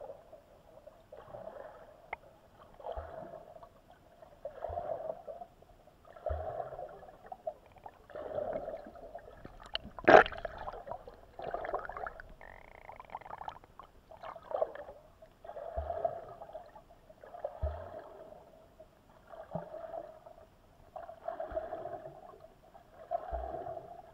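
Water surging against an Eken H9R action camera's underwater housing, heard muffled from inside the case, in regular swells about every second and a half to two seconds. One sharp knock on the housing comes about ten seconds in.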